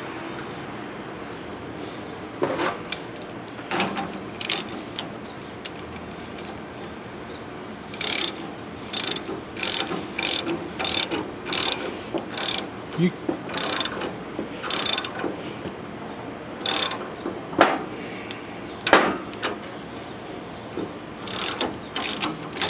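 Ratchet wrench clicking in short irregular strokes as it turns a nut on a threaded-rod puller, drawing a bushing into a leaf spring eye.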